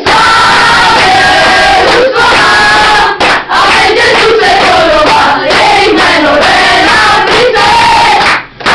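A team of young boys singing and shouting their victory song together, loudly, with hands clapping along; the singing breaks off briefly near the end.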